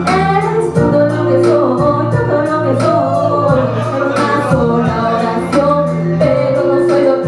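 Hip-hop backing track with drums, bass and chords, with a sung vocal line over it.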